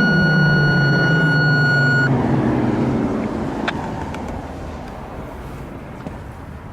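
Federal Signal Thunderbolt 1000T outdoor warning siren winding down: its low tone glides steadily lower and fades away. Over it, a steady high radio tone, the second of a two-tone pair, cuts off about two seconds in.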